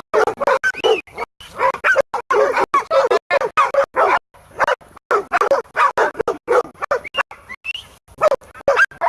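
Hog-hunting dogs barking rapidly and almost without pause, a pack baying at a feral hog, with a brief lull about halfway through.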